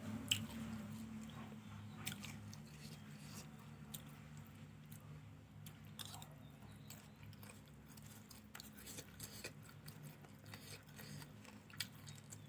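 A person chewing and biting fried rice close to the microphone, with scattered small clicks and a steady low hum underneath.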